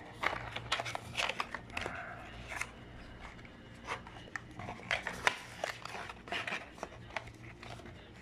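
A small paperboard retail box being handled and opened by hand: irregular clicks, taps and scraping rustles as the cardboard flap is worked open and the box is turned over.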